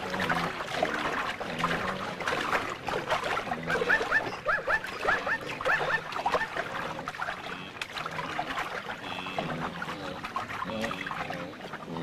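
Wild animals calling, with a rapid run of about seven short rising squeals a little before the middle.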